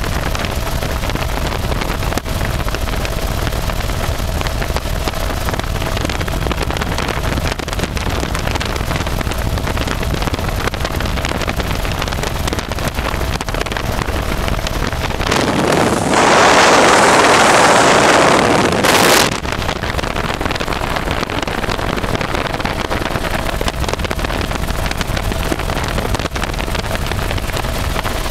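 Helicopter in flight heard through an open door: steady rotor and engine noise with a faint steady whine, and wind rushing on the microphone. A little past the middle, a much louder rush of wind takes over for about four seconds, then drops back.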